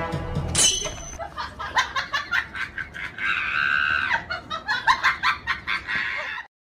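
A person laughing hard in quick repeated bursts, with a sudden sharp sound about half a second in and a held high-pitched cry about three seconds in.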